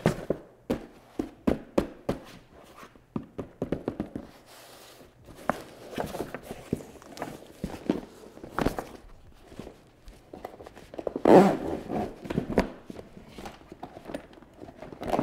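Packaging being handled during an unboxing: a string of short knocks and taps with rustling in between, and a louder burst of handling noise about eleven seconds in.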